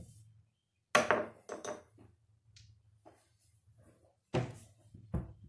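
Casino chips clacking as they are handled and set down on a craps table layout: a sharp clack about a second in, a few lighter clicks right after it, and two more knocks near the end.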